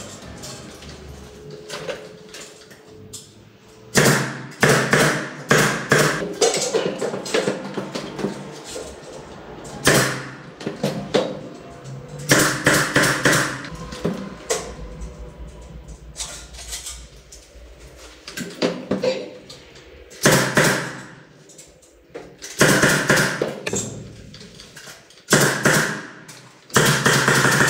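Intermittent spells of work on a ceiling: a handheld power tool runs in short bursts of a second or two, with knocks and taps between them, as metal trim strips are fixed overhead.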